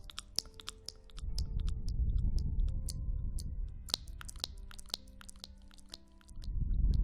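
Close-miked ASMR trigger sounds: many crisp, crackly clicks, over low rumbling swells, with soft sustained tones underneath.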